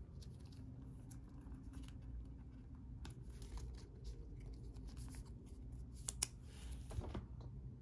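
Baseball trading cards and their packaging being handled at close range: light scraping, rustling and sliding, with a couple of short sharp clicks near the end.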